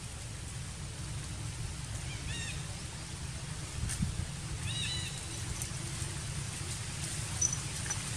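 Baby macaque crying with short, high, arching squeals in two brief bouts about two and a half seconds apart, over a steady low rumble.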